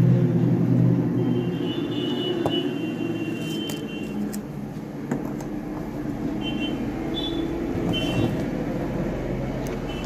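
A steady low engine-like hum that is loudest at the start and eases off, with a few short high tones about two seconds in, around the middle and near the end.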